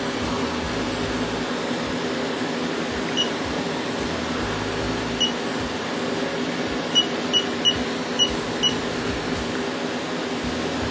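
Steady hum of the CNC mill and shop, with short high beeps from the Haas control's keypad as values are keyed in: one beep about three seconds in, another about two seconds later, then a quick run of five.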